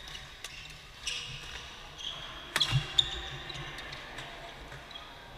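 Badminton rally: rackets striking the shuttlecock in a series of sharp hits, the loudest pair about two and a half to three seconds in, echoing in a large hall.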